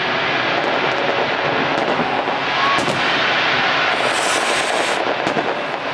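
Fireworks going off in a dense, continuous barrage of rumbling bursts, with a sharper spell of crackling about four seconds in.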